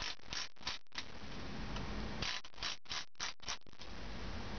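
Plastic lens head of a rechargeable LED floodlight being twisted by hand, giving short rasping ratchet-like clicks in two runs of about four a second, with a pause of about a second between them.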